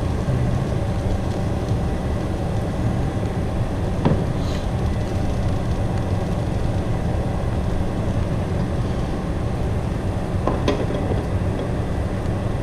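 Steady low hum of a running ventilation fan, with a utensil clinking against cookware about four seconds in and twice more in quick succession later on.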